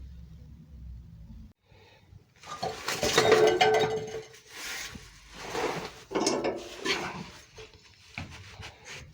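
A low rumble at first, then metal exhaust parts and hardware clanking, clinking and scraping in several rattling bursts as they are handled and worked on. The loudest clatter comes a few seconds in.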